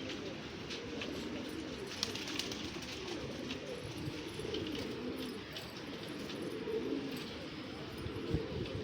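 Several pigeons cooing at once, their low, rolling coos overlapping continuously, with faint scattered ticks over them.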